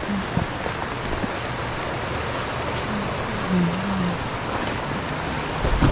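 Steady rush of a fast mountain river pouring over rocks and riffles, with a low thump near the end.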